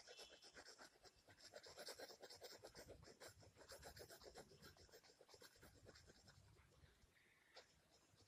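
Faint scratching of a pencil on paper in quick back-and-forth shading strokes.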